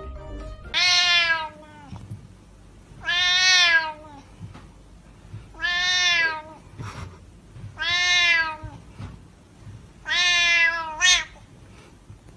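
A colourpoint cat meowing loudly while being petted: five long, drawn-out meows about two seconds apart, the last followed by a short yelp.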